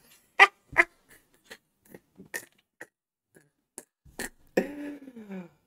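A man laughing hard into a close microphone: a string of short breathy bursts, then a voiced laugh falling in pitch near the end.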